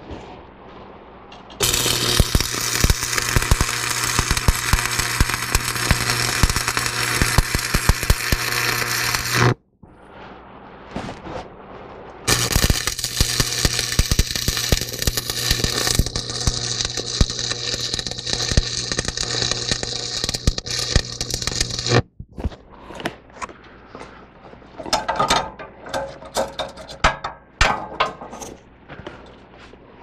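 AC stick welder (buzz box) arc crackling and sizzling with a steady electrical hum through two long welds, the first about eight seconds and the second about ten, each cutting off suddenly. After the second weld come scattered light taps and clinks on steel.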